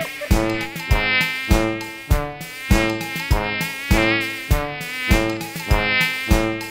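Cartoon housefly buzzing sound effect, a wavering buzz, over an instrumental backing track with a steady beat.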